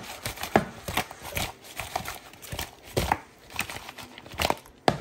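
A plastic basin of whole raw fish being handled and jostled on a counter: a run of irregular knocks and clatters as the basin and fish are shifted about.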